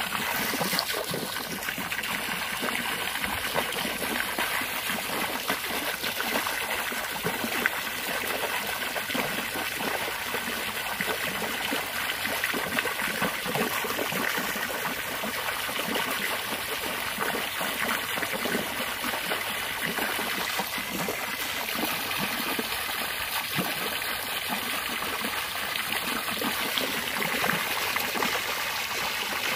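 A jet of water from a garden hose splashing steadily into a swimming pool, churning the surface.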